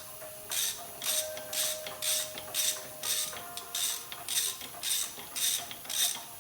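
Ratchet wrench with a 10mm socket being swung back and forth to back out a bolt, its pawl clicking in short, even strokes about twice a second.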